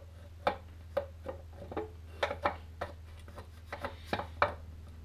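Irregular sharp clicks and knocks of metal engine parts on a Land Rover TD5, worked by a gloved hand while trying to free a part near the water pump, over a steady low hum.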